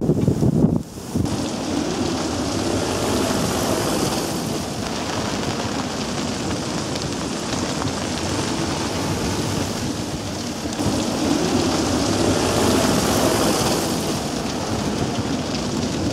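Squall: strong wind and rain, the wind buffeting the microphone with a low rumble in the first second. Gusts swell about four seconds in and again around twelve seconds.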